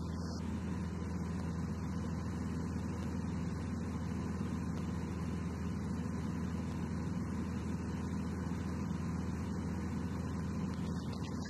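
Light aircraft's piston engine and propeller running steadily in flight, a constant low hum made of several even tones.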